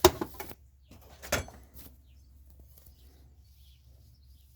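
Hand tools being handled and set down: a sharp clatter at the start and another knock about a second and a half in, then only a faint steady background.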